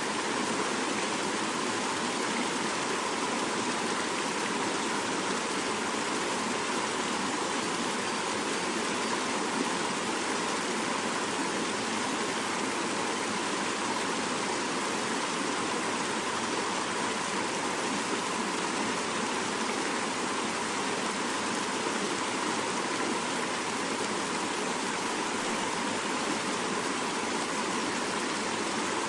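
Fast-flowing mountain river rushing steadily over rocks, a continuous even roar of water.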